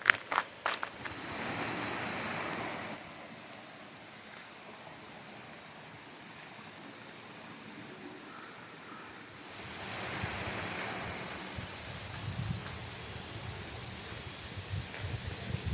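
Tropical forest ambience: a soft hiss, then from about nine seconds in a steady high-pitched insect whine, such as cicadas, over it. A few faint clicks at the start.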